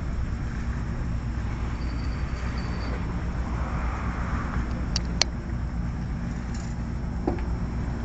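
Steady low engine rumble, with a pair of short sharp clicks about five seconds in.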